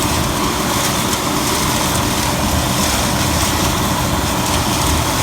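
Gleaner M2 combine running steadily while harvesting soybeans: a constant loud drone and rushing noise with no change in pitch.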